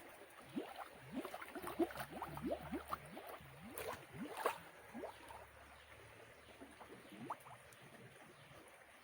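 Faint water gurgling: a run of short rising bubbly blips, several a second, with a few small splashes, as the cloth-covered bait pot is set down into the water; the gurgling thins out after about five seconds.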